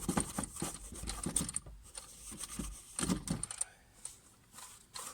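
Quick runs of light clicks, rattles and knocks from small hard objects being handled, busiest in the first second and a half and again around three seconds in.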